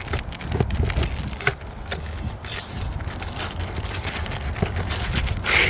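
Roof shingles being handled and pried at: scattered clicks, scrapes and crackles, with a louder rasping scrape near the end.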